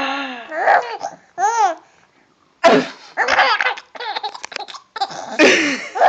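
Baby laughing in repeated short, high bursts, pausing briefly about two seconds in before laughing again.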